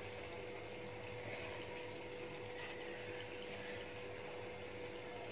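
Steady quiet hiss of a pan of watery masala gravy heating on the stove, with a constant faint hum underneath; no stirring or scraping is heard.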